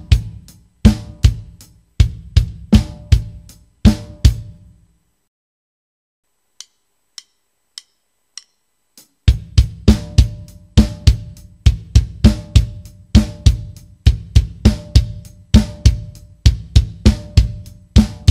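Acoustic drum kit playing a groove of bass drum, snare and hi-hat. It stops about five seconds in, four light clicks count in the next tempo, and the groove starts again, faster, about nine seconds in.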